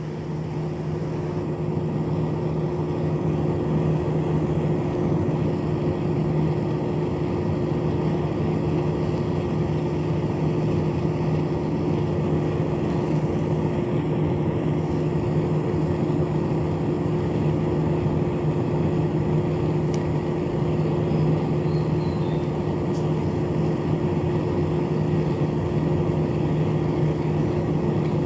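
Small battery-powered electric fan motor, salvaged from a broken fan, spinning up and then running steadily with an even hum.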